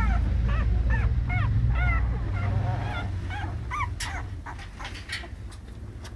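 Young American Staffordshire Terrier puppies squeaking and whimpering: a run of short squeaks that rise and fall, about two a second, thinning out to small clicks after about four seconds. A low rumble sits under them and fades.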